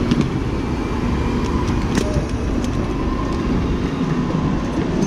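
Hard wheels of a rolling suitcase rumbling and clattering over pavement, a steady rough rumble with a few sharp clicks.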